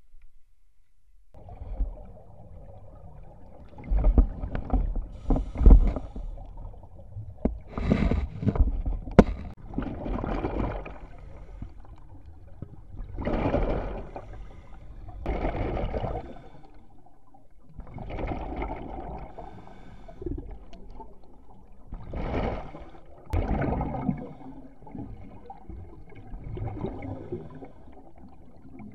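Scuba diver breathing underwater through a regulator: exhaled bubbles gurgle out in repeated surges every few seconds, with a few sharp clicks among them.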